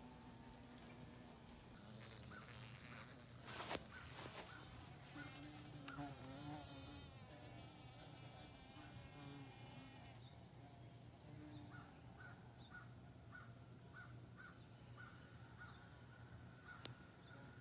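Carpenter bee buzzing faintly, a low drone that wavers in pitch and comes and goes. A rushing noise runs for several seconds near the start, with a sharp tap about four seconds in, and a faint repeated chirp sounds in the second half.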